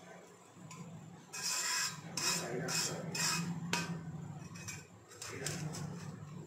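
Stainless-steel bowl pushed and twisted down into a bed of salt in an iron kadai, the grains grating against the metal in a series of rasping scrapes, loudest in the first half.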